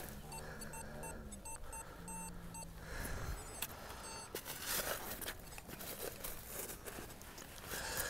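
Metal detector beeping while a target is dug: a low tone that cuts in and out, mixed with a run of short higher pips over the first three seconds, then soft scuffing and rustling in the sand.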